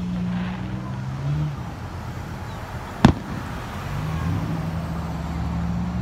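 One sharp aerial firework bang about three seconds in, over the steady low hum of a car engine that drops away for a couple of seconds in the middle.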